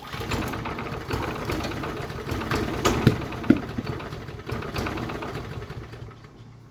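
Walk-behind lawnmower's small gasoline engine running after a rough-starting tune-up. It starts abruptly and gets gradually quieter toward the end.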